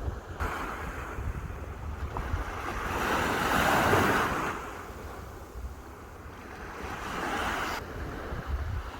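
Sea waves washing onto the shore, one surge building to its loudest about halfway through and a smaller one near the end, with a low wind rumble on the microphone throughout.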